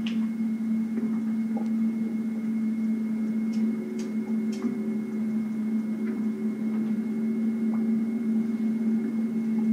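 A steady low hum, with three faint clicks about three and a half to four and a half seconds in.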